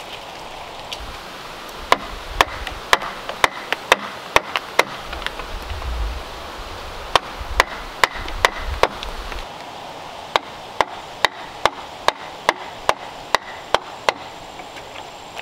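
Wooden mallet striking a chisel driven into a squared timber beam: a series of sharp wooden knocks, irregular at first at about two a second, then after a short pause an even run of about two and a half a second.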